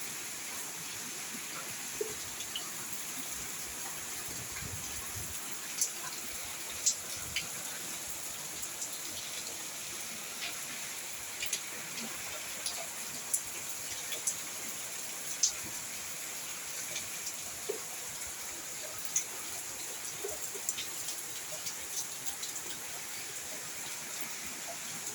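Steady rain falling, with scattered sharper drops ticking every second or so.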